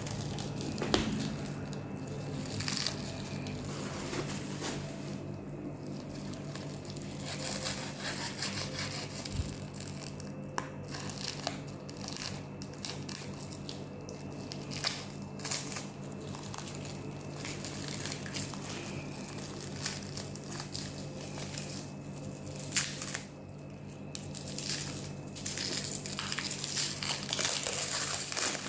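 Packaging wrap being crumpled and torn by hand while an air rifle is unwrapped: irregular crinkling and rustling with many short crackles, over a faint steady low hum.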